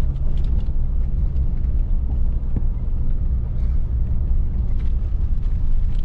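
Steady low rumble of a vehicle on the move, road and wind noise with a few small clicks.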